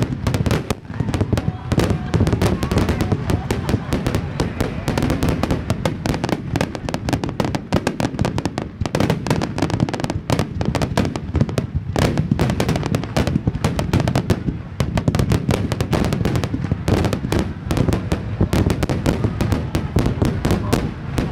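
Large fireworks display in a sustained barrage: many aerial shells bursting at once, giving a dense, unbroken stream of booms and crackles with hardly a gap between them.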